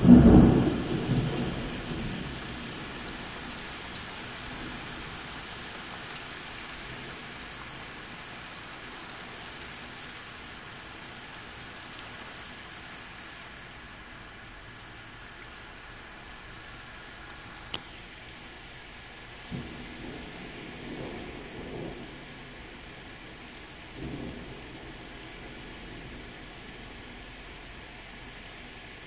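Steady heavy rain, opening with a loud clap of thunder that rumbles away over about two seconds. There is one sharp click a little past halfway, then two softer, lower thunder rumbles later on.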